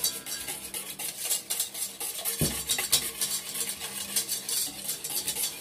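Wire whisk beating a thin barbecue sauce in a stainless steel bowl: a fast, continuous run of scraping, clinking strokes against the metal, with one low bump about two and a half seconds in.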